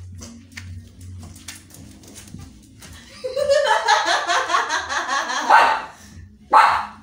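Japanese Spitz dog vocalizing: a loud, drawn-out, pulsing whine starts about three seconds in and lasts about three seconds. A short, sharp, loud sound follows near the end.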